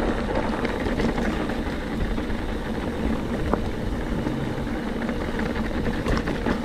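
Mountain bike rolling over a rocky trail: a steady, noisy rumble from the tyres and the riding, with scattered sharp clicks and rattles, more of them near the end.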